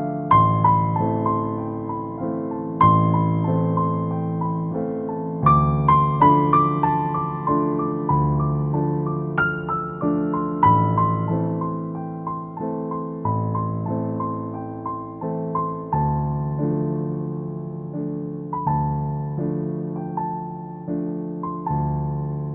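Background piano music: a gentle melody of struck notes over a slow-changing bass line, each note fading after it is played.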